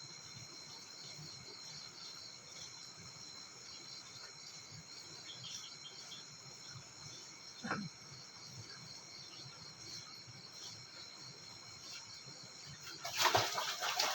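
Crickets and other insects trilling steadily in a continuous chorus. A short sound falling in pitch cuts in about eight seconds in, and a louder burst of mixed sound starts near the end.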